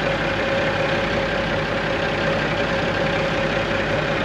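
Diesel semi-truck engine idling steadily, a continuous low rumble with a constant hum running through it.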